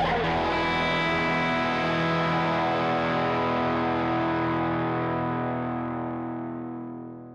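Closing music: the last chord of a guitar song, struck just before and left ringing, slowly fading out near the end.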